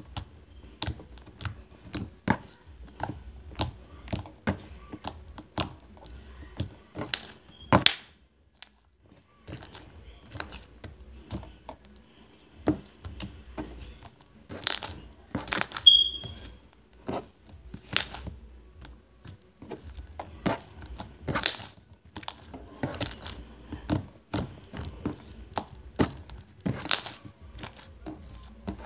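Orange slime being squished, stretched and folded by hand on a tabletop, making an irregular run of sharp, wet clicks and pops.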